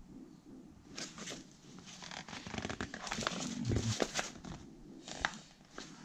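Sheets of paper rustling and crinkling as the pages of a printed document are handled and turned, in irregular rustles with a few sharper crackles starting about a second in.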